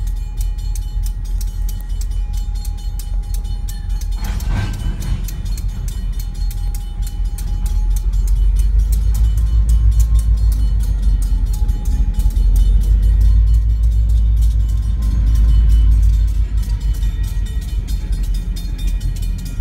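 Freight train of steel gondola cars rolling through a grade crossing: a steady low rumble of wheels on rail with a sharp clank about four and a half seconds in, and a faint wavering squeal of wheels. The rumble grows louder in the second half as the Providence & Worcester diesel locomotive comes by, and rapid ringing clicks run throughout, which fits the crossing bell.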